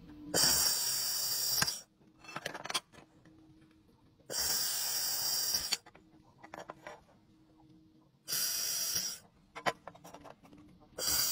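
Handheld laser welding gun firing in four bursts of about a second each, a loud bright hiss as it welds a corner seam. Short sharp clicks come in the pauses, over a faint steady hum.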